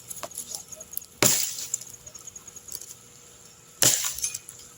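Two machete blows chopping into wood, about two and a half seconds apart. Each is a sharp crack followed by a brief rattle of small cracks.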